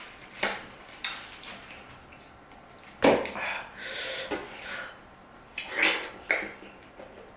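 Cutlery clinking against a dish several times in separate sharp knocks, the loudest about three seconds in, amid the small noises of someone eating.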